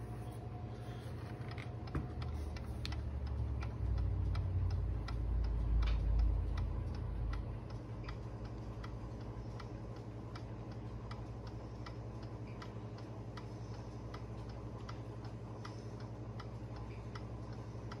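Circa 1898 Waterbury "Leeds" beehive mantel clock with a Brocot open escapement, ticking steadily at about two ticks a second, the constant tick-tock of a cleaned and oiled movement keeping good time. A low rumble is louder than the ticks from about two seconds in until about halfway through.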